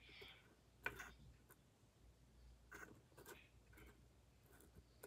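Near silence: room tone with a few faint clicks, the sharpest about a second in.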